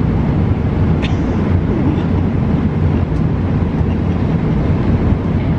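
Steady, even roar of an airliner cabin in flight.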